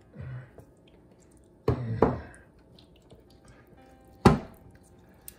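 Kitchenware knocks from a glass mixing bowl and an enamelware roasting pan as marinade is tipped and scraped onto a whole fish: two knocks close together about two seconds in, then a single sharper, louder knock past four seconds.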